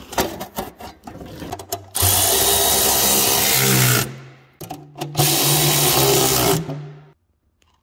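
A cordless electric ratchet spinning bolts into a snowmobile's belly pan panel: two runs of about two seconds each, with a short pause between, after a few light clicks and knocks as the panel is handled.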